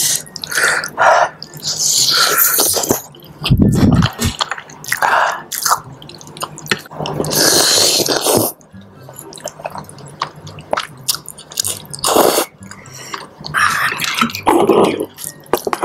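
Close-miked eating of saucy seblak noodles: wet slurping and chewing, with metal spoon and fork clicking against a glass baking dish. The longest slurp comes about halfway through.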